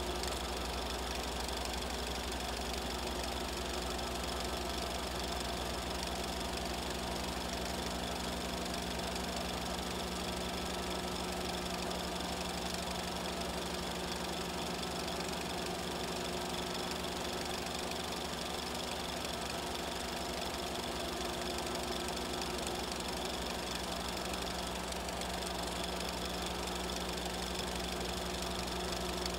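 A steady mechanical-sounding drone: several fixed tones over a constant hiss, unchanging throughout.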